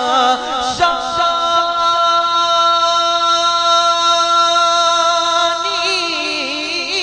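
A man's voice singing a Punjabi naat into a microphone: a short wavering ornament, then one long steady held note from about a second in, breaking into winding runs near the end.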